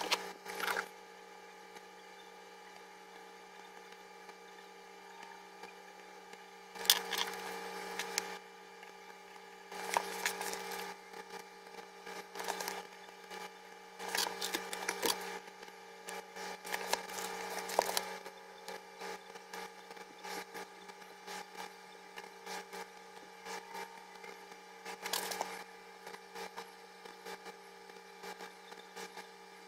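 Pen scratching on journal paper and hands shifting the notebook and a plastic set square, in scattered bursts of scratching and rustling. A steady hum runs under it.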